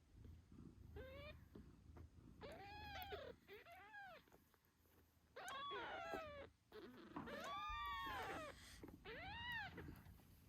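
Newborn British Shorthair kittens meowing: about half a dozen thin, high cries that rise and fall in pitch, the longest and loudest about three quarters of the way through. A low, steady mother-cat purr runs underneath.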